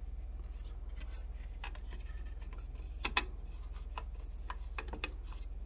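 Small scattered clicks and taps of a screwdriver and screws being worked into a graphics card's back plate, over a steady low hum. The loudest is a pair of clicks about three seconds in.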